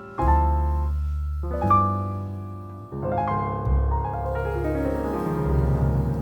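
Background music: piano playing slow, sustained notes and chords.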